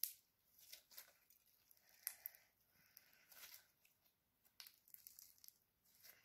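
Faint, irregular crackling and popping from slime studded with beads and fake sprinkles as it is squeezed and kneaded in the hands.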